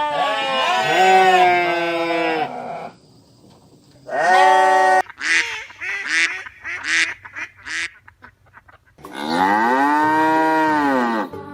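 Cattle mooing, with long drawn-out calls, the last one near the end rising and falling. In the middle, a quick run of about six short, high honking calls.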